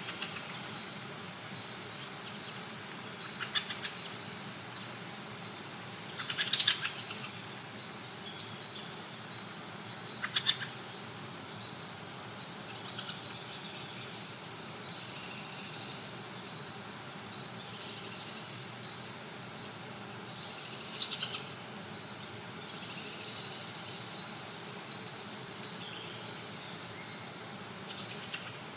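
Dawn chorus of woodland birds: many birds chirping and trilling at once, with a few louder, brief calls about 3.5, 6.5 and 10 seconds in.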